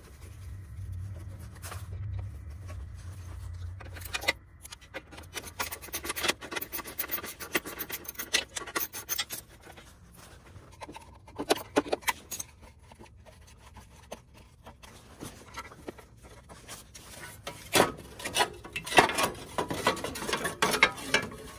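Screws being turned out with a screwdriver and a plastic engine cover being worked loose on a Murray snowblower: scattered scraping, rubbing and clicking of the tool and parts, loudest near the end as the cover comes away.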